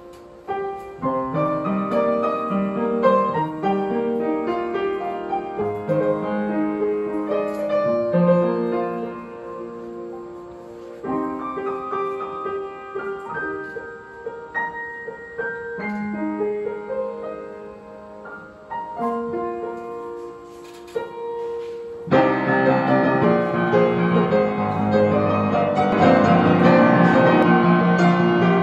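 Upright piano being played: a melody over chords with a few short pauses, then, about three-quarters of the way through, a sudden change to louder, fuller chords.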